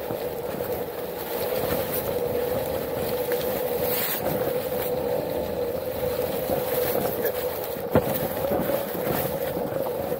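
Onewheel's electric hub motor whining steadily while riding on a dirt trail, over tyre and trail noise, with a sharp knock about eight seconds in.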